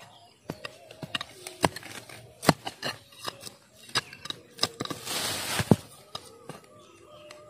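Dry twigs and leaves crackling and snapping in a run of sharp cracks, with a short burst of rustling about five seconds in.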